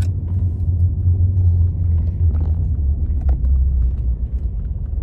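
Pickup truck on the move, heard from inside the cab: a steady low rumble.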